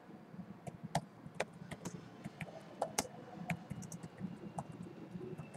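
Typing on a computer keyboard: irregular key clicks, a few a second.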